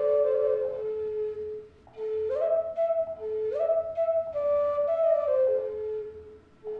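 Wooden Native American-style flute playing a slow melody: held notes, several of them sliding up into a higher note, with a short breath pause about two seconds in and another near the end.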